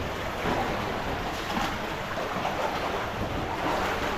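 Steady rush of cave stream water running through rimstone pools, with a few faint knocks or splashes.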